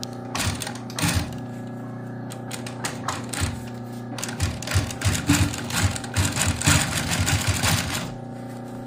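Two-needle post-bed sewing machine stitching the heel seam of a shoe upper: a few single stitches in the first second or so, then a run of fast stitching from about four seconds in until near the end, over a steady hum.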